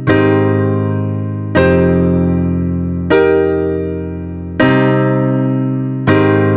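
Piano music: a sustained chord struck about every second and a half, each left to ring and fade before the next.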